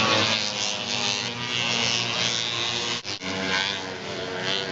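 Several single-cylinder two-stroke racing snowmobile engines buzzing at high revs, their pitches wavering and overlapping as sleds run. The sound dips out sharply for a moment about three seconds in.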